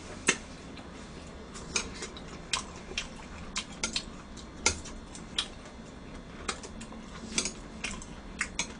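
Eating sounds: chewing, with about a dozen sharp, irregular clicks and taps of thin metal chopsticks against a plate as pickled perilla leaves are picked up.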